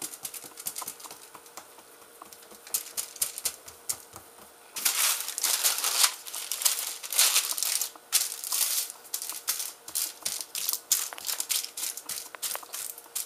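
Parchment paper crinkling and crackling as hands press two layers of cookie dough together, a rapid run of small clicks that grows louder about five seconds in.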